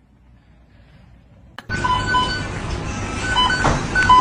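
About a second and a half of faint low hum, then a click and a simple electronic tune of short beeping tones at a few fixed pitches over a hissy background.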